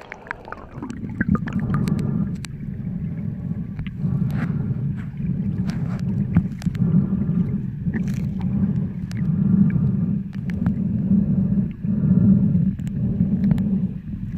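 Muffled underwater noise picked up by a submerged camera: a low, steady rush of moving water that swells and dips every couple of seconds, with scattered sharp clicks and ticks throughout.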